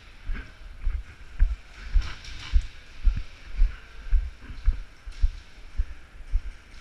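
Footsteps on a concrete floor, heard through a body-worn camera as dull low thumps just under two a second at a brisk walk, with gear and clothing rustling.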